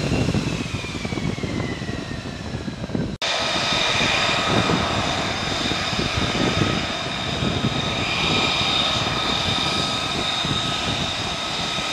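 F-35B jet engine (Pratt & Whitney F135) running on deck: a rushing roar with a high turbine whine that falls in pitch over the first three seconds. After a sudden cut about three seconds in, it carries on as a steady roar with several high whines held level.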